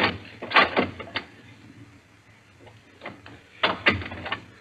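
Radio-drama sound effect of footsteps on a hard floor: three sharp steps about half a second apart, then a short cluster of steps a few seconds later.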